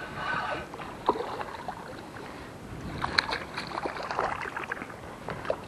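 A spinning reel winds briefly with a whirr. Then a hooked fish splashes and thrashes at the water's surface beside the boat, in a run of small splashes and knocks.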